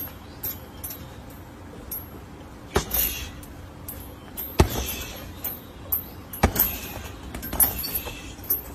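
Boxing-gloved punches hitting a hanging heavy punching bag: three hard hits about two seconds apart among lighter ones, with the bag's hanging chain clinking between blows.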